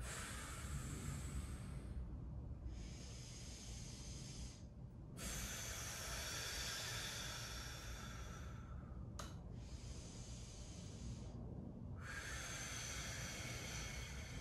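A man breathing audibly, long slow breaths in and out through nose and mouth, about five breaths each lasting two to four seconds with short pauses between, in time with repeated crunch-like thoracic mobility movements on a foam roller.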